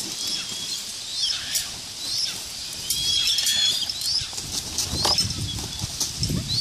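A large eagle beating its wings on the ground, the wingbeats heaviest between about five and six and a half seconds in, over repeated short, rising, high-pitched chirping bird calls about every half second.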